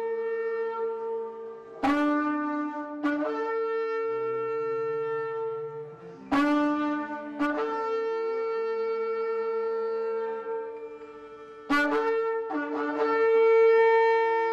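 Several shofars blowing long, held blasts at different pitches that overlap one another, with fresh blasts breaking in every few seconds; the loudest swells near the end.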